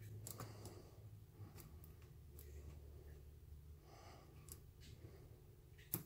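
Near silence with faint ticks and clicks of a hook pick and tension wrench working the pins of a Master Lock padlock, and one sharper click near the end. The picker takes this clicking for a sign of security pins.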